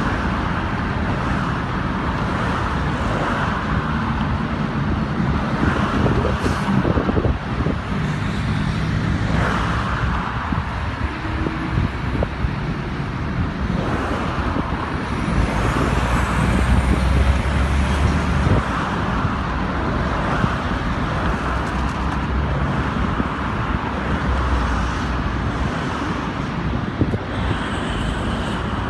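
Steady motorway traffic noise mixed with the low rumble of running heavy diesel truck engines, the rumble swelling now and then.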